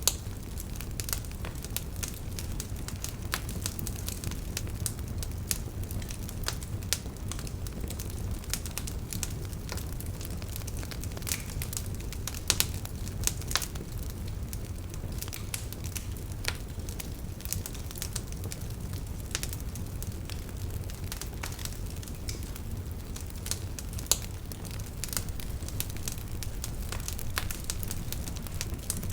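Fireplace fire crackling, with many irregular sharp pops over a steady low rumble. A few pops stand out louder, about twelve and a half seconds in and again near thirteen and a half.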